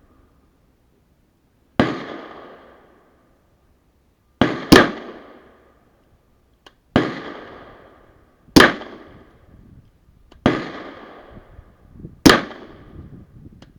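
Suppressed 9 mm Glock 17 pistol firing about seven shots, spaced one to two and a half seconds apart, each a sharp crack followed by a trailing echo.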